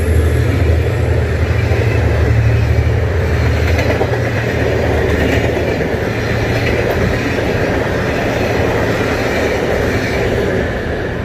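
Passenger train passing at speed behind a diesel locomotive: the locomotive's low engine drone for the first few seconds, then the steady rush and rattle of the coaches' wheels on the rails.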